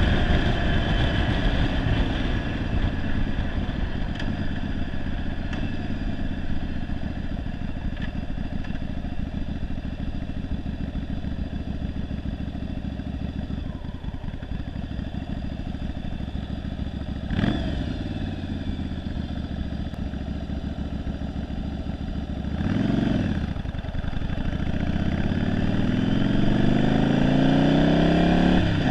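1991 Yamaha Virago 750 V-twin, converted to a single carburettor and running poorly, under way on the road. The engine note falls as the bike slows, two short revs come about two-thirds of the way through, and then the pitch climbs steadily as it accelerates near the end.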